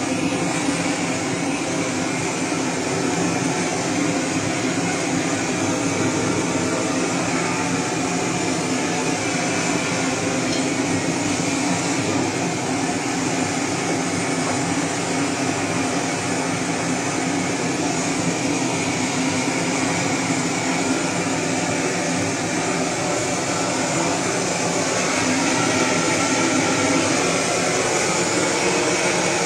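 Handheld gas blowtorch burning steadily as its flame is played over a hanging carcass to singe off the hair, a little louder near the end.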